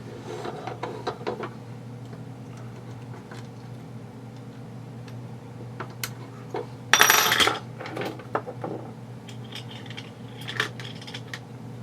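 Small metal hand tools clinking and clattering on a workbench, with scattered light taps and one louder, ringing clatter about seven seconds in.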